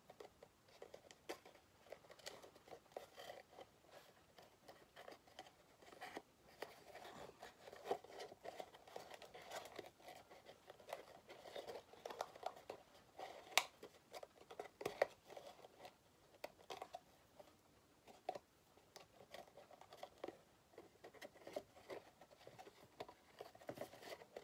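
Handling and folding a small paper treat box by hand: faint, irregular paper rustling and crinkling, with scattered small clicks as the folds are pressed in.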